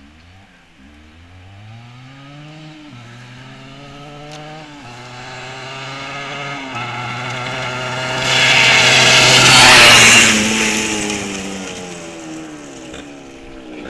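Motorcycle engine approaching and accelerating hard, its pitch climbing and dropping back at three gear changes. It gets loudest as the bike rides past through the flooded stretch about eight to ten seconds in, with a rush of splashing water, then fades as it moves away.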